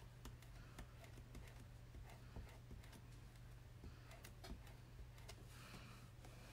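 Near silence: a low steady hum with faint scattered ticks and light scrapes of a squeegee spreading chalk paste over a small stencil.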